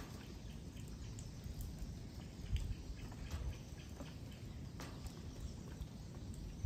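Outdoor ambience: a steady low rumble with scattered faint chirps and a few sharp clicks, the loudest about two and a half seconds in.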